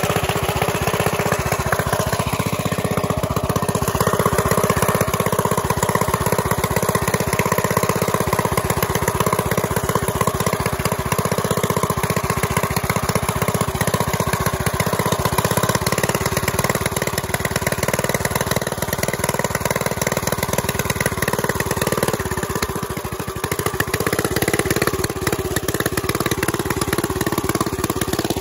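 1958 Gravely walk-behind tractor's single-cylinder engine, converted with a Jenkins overhead-valve kit, running steadily while the machine drives along. It dips briefly in loudness about three-quarters of the way through.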